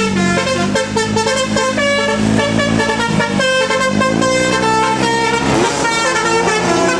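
Tour bus's 'basuri' telolet horn playing a melody in stepped notes, several horn tones sounding together. Near the end the tones begin to glide.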